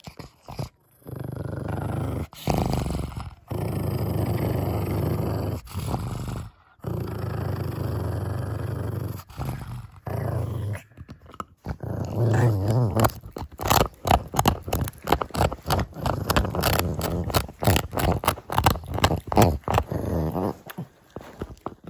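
A pug growling over a bone chew in long, low rumbles broken by short pauses, then from about halfway on, growling in shorter bursts amid rapid clicking and crunching as it gnaws the chew.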